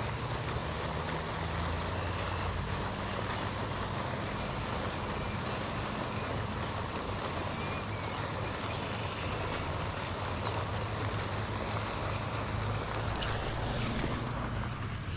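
A bird gives short, high chirps about once a second over a steady low outdoor rumble, and falls silent about ten seconds in.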